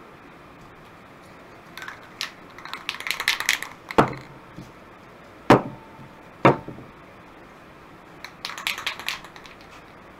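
Aerosol spray-paint cans handled on a workbench: two spells of quick clicky rattling, and three sharp knocks as cans are set down, the second followed by a brief metallic ring.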